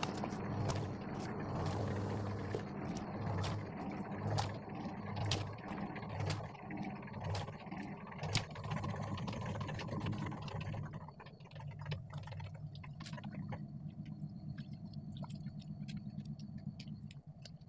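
Ice blocks being handled and stacked into the brine tank of a homemade ice-making machine: a run of knocks and clatters that thin out after about ten seconds, over the refrigeration unit's steady low hum.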